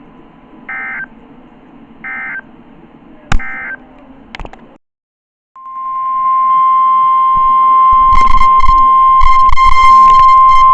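NOAA Weather Radio alert signals: three short digital SAME data bursts about a second apart marking the end of the tornado warning message, then a click and a brief dropout. After that the steady 1050 Hz weather radio warning alarm tone sounds loudly from about halfway, announcing the next alert, with some crackling knocks under it.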